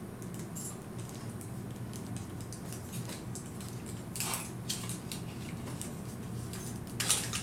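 Small clicks and rubbing from hands handling and posing a 1/6 scale Hot Toys War Machine action figure, moving its jointed arm and hand. A louder click and rustle comes about four seconds in and again near the end, over a steady low hum.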